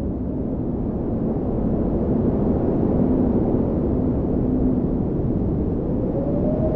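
5-inch FPV quadcopter in flight, wind rushing over its onboard microphone with the brushless motors humming underneath; near the end the motor tone rises as the throttle goes up.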